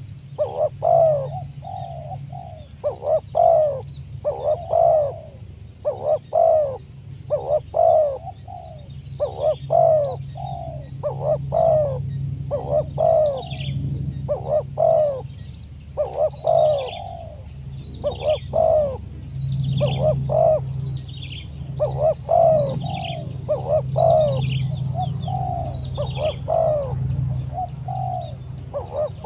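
Spotted doves cooing over and over in quick rhythmic phrases, with higher chirps from about halfway and a low steady hum underneath.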